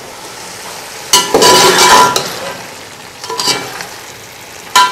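Beef pieces with garlic frying in hot oil and fried onions over a full flame, sizzling steadily while being stirred for browning. A spoon scrapes and clatters against the pot in loud bursts, the longest about a second in, another shortly past three seconds, and one near the end.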